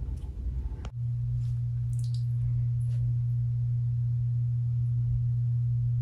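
A steady low electrical hum, one unchanging tone, that starts abruptly about a second in.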